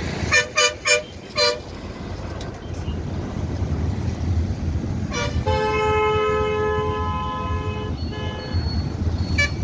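Vehicle horns honking: four quick toots in the first second and a half, then a long honk of about two and a half seconds starting about five seconds in, and a couple of shorter toots near the end, over a steady low rumble.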